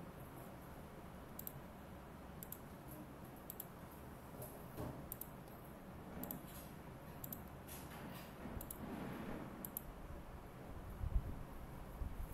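Irregular, light clicks of a computer mouse and keyboard over faint steady background hiss.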